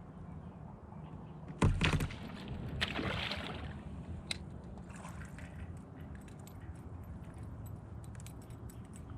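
A sharp knock against the kayak hull about one and a half seconds in, then water splashing and sloshing for about a second, followed by small clicks and rattles of fishing gear.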